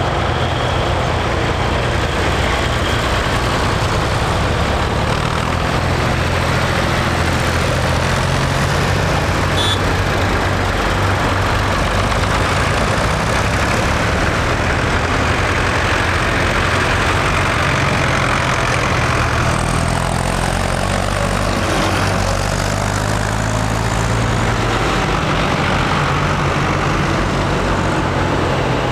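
Diesel engines of a line of older farm tractors, a Ford and a John Deere among them, running steadily as the tractors drive past one after another at low road speed.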